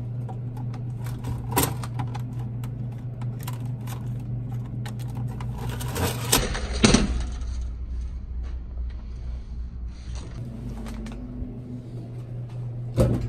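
Open soda vending machine humming steadily, with a run of small clicks and rattles from its door and parts being handled, and a louder clatter about six to seven seconds in.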